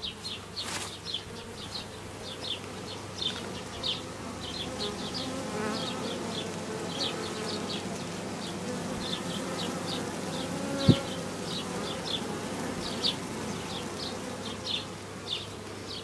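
Honeybees buzzing at a hive entrance in a steady hum, with short high chirps repeating throughout and a single sharp knock about eleven seconds in.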